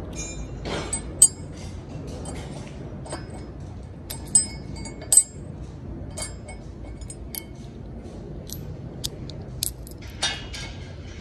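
A steel hex bolt and washer clinking against the steel mounting plate of a bull-bar leg as they are set in place and threaded in by hand. Scattered light metallic clinks, several sharp and ringing, spread out over the time.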